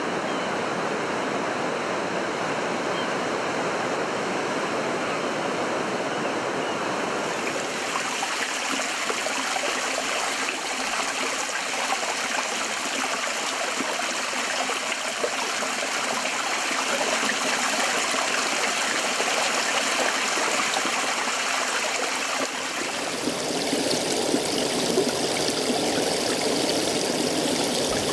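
Field recording of flowing stream water, a steady rushing sound that shifts in character about seven seconds in and again a few seconds before the end.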